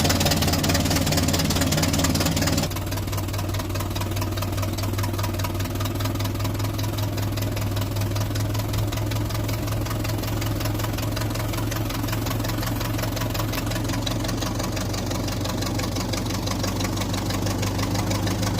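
1953 Plymouth engine idling steadily just after a cold start. About three seconds in it drops to a quieter, lower idle and runs evenly from there.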